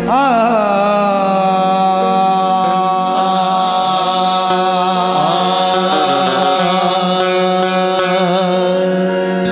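Male qawwali singer's voice holding one long, slightly wavering note that slides into pitch at the start, over a steady harmonium drone. This is the opening alaap of a qawwali.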